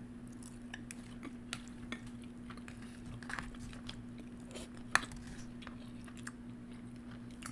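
Close-up chewing and mouth sounds of someone eating, with small scattered clicks and one sharper click about five seconds in, over a steady low hum.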